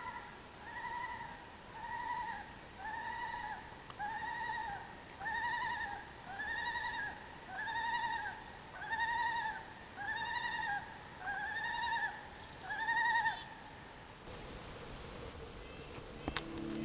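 An animal call, most likely a bird: one short arched note repeated steadily about once a second, a dozen or more times, then stopping. A brief higher buzzy sound comes near the end of the calling.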